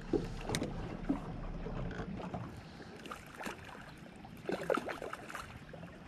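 Small knocks and clicks aboard an aluminum fishing boat, over a low rumble that fades after about two seconds; the loudest knocks come about four and a half seconds in.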